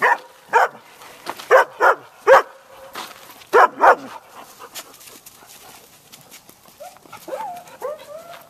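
A white puppy barking at a larger dog: about seven short, sharp barks in the first four seconds, some in quick pairs. Softer wavering calls follow near the end.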